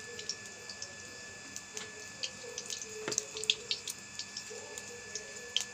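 Cooking oil heating in a kadhai over a fire: a steady hiss with scattered small crackles and pops.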